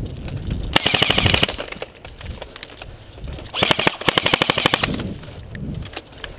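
Airsoft rifle firing two full-auto bursts: a rapid, even rattle of shots about a second in, and a longer one of just over a second about three and a half seconds in.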